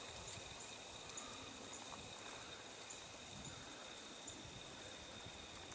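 Quiet outdoor ambience in an open field: a faint even hiss with a thin steady high tone and a few faint scattered high ticks, with no footsteps.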